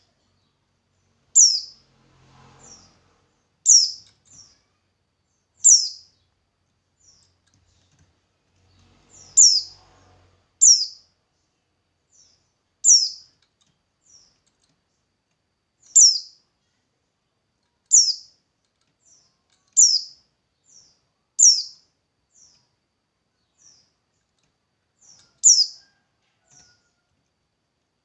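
A songbird repeating a short, high, downslurred chirp about once every two seconds, with fainter short notes in between.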